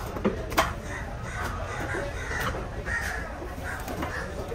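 Crows cawing repeatedly, with one sharp knock of a knife striking the wooden chopping block about half a second in.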